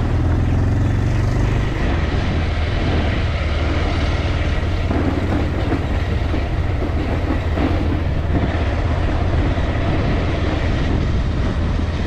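Motorcycle riding at steady road speed, its engine running under a heavy, even rumble of wind on the helmet microphone.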